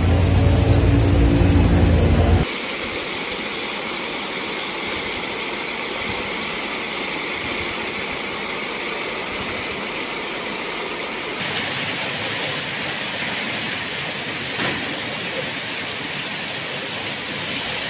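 A vehicle engine running loud while driving through flooded road for about two seconds, then an abrupt change to a steady rushing hiss of floodwater and heavy rain.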